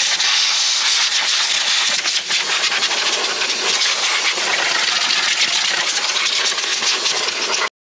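Garden hose spray nozzle jetting water onto the powerhead of an outboard motor, a steady hiss of water spraying on metal that cuts off near the end.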